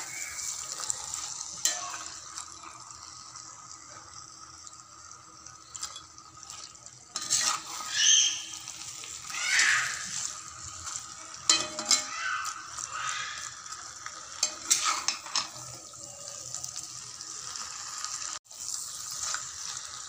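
A spatula stirring and scraping chunks of goat head and mutton through thick masala in a pan, with irregular scrapes over a steady sizzle of the food frying.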